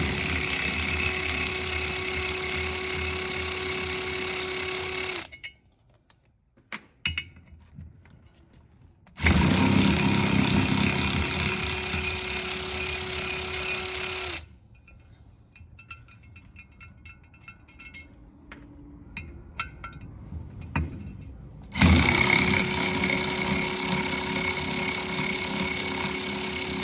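Power impact wrench running in three bursts of about five seconds each, removing fasteners from the Segway Villain's primary clutch, with small clinks of tools and parts in the pauses between.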